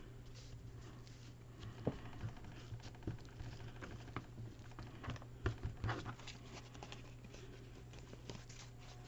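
Light scattered taps and rustles of paper and fabric being handled and pressed down on a craft table, over a steady low hum.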